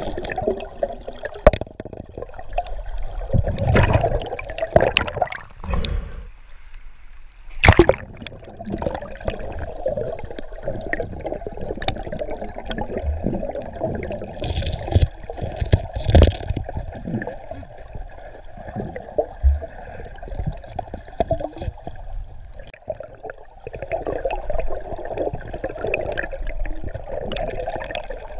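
River water heard underwater through a submerged camera: a steady rushing of the current, with scattered clicks and knocks as hands shift and handle rocks on the riverbed. There are louder surges about four and eight seconds in.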